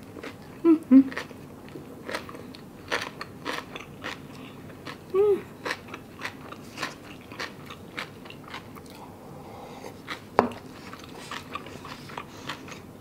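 Close-miked chewing of a mouthful of food, with many wet clicks and crunches and a few short 'mm' hums. A single sharp click about ten seconds in.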